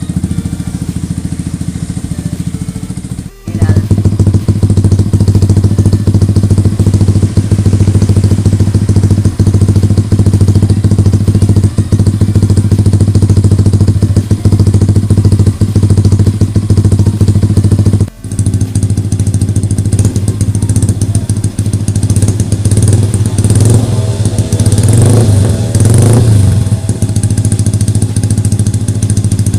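Yamaha R15 V3's 155 cc single-cylinder engine running loud and steady at idle through an SC Project full-system exhaust. The sound breaks off briefly twice, and its pitch wavers near the end.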